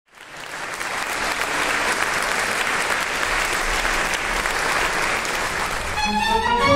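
Concert audience applauding, fading in over the first second and then holding steady. About six seconds in, the orchestra starts playing.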